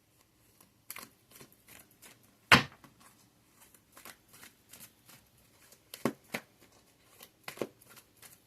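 Tarot cards being shuffled and handled by hand: a run of quick flicks and light taps, with a few sharper slaps of the cards scattered through it.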